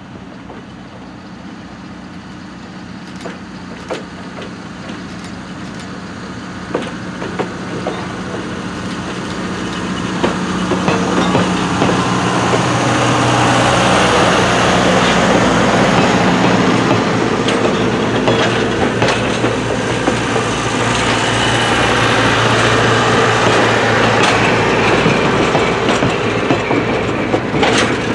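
EMD E3 diesel passenger locomotive approaching with a steady engine hum that grows louder, then passing. Its passenger cars roll by close behind, with wheels clicking over rail joints.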